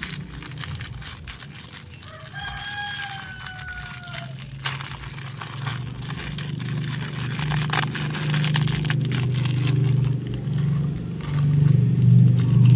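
A rooster crows once about two seconds in, a single call of about two seconds falling slightly in pitch, over the crinkle of a plastic bag being torn open. A steady low hum grows louder near the end.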